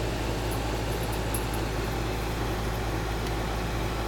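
Steady low hum under a constant background hiss, with no change in level.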